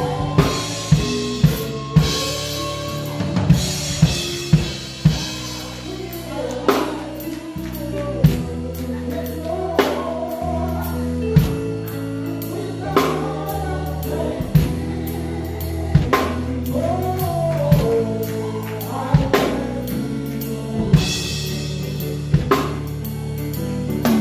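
Live gospel worship band playing, with the drum kit heard up close: snare and bass drum hits, and cymbal crashes near the start and again near the end. Sustained low notes and singing run underneath.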